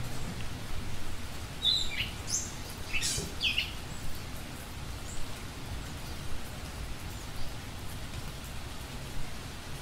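A few short bird chirps and quick sweeping calls in a burst about two seconds in, over a steady hiss. The recording is slowed down four times, which lowers and stretches the calls.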